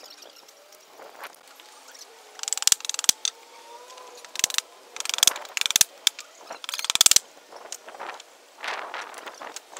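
Several short bursts of rapid ratcheting creaks as nails are pried out of old wooden boards with a bar, the first about two and a half seconds in and the last near seven seconds.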